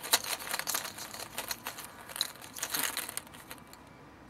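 A hand rummaging in a bag of numbered lottery balls: crinkling and rustling of the bag with scattered small clicks, dying away after about three and a half seconds.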